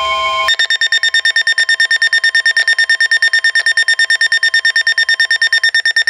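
Weather alert radios sounding for a severe thunderstorm warning. A steady warning alarm tone cuts off about half a second in, and a loud, rapid, even beeping of about nine beeps a second follows.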